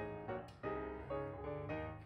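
Background piano music, with notes and chords struck one after another.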